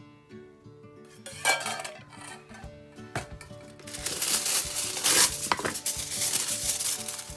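A metal ladle knocks against ceramic cups a couple of times while egg mixture is poured, then from about halfway aluminium foil crinkles loudly as it is handled and pressed over the cups. Background music plays throughout.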